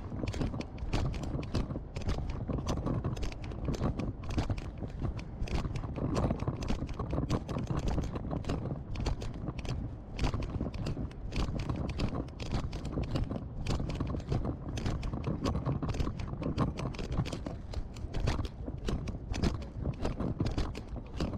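Footsteps of someone walking on pavement close to the microphone: a steady, quick run of clicks and knocks with a low rumble underneath.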